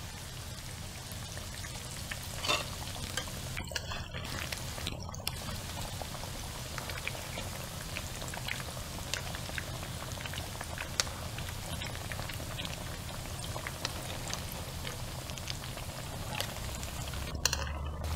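Tempura-battered catfish fillet deep-frying in hot oil in a wok: a steady sizzle and crackle of bubbling oil, with a couple of sharper pops.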